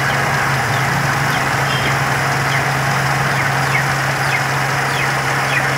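Toyota 4A-F carburetted 16-valve four-cylinder engine idling steadily, with no change in speed.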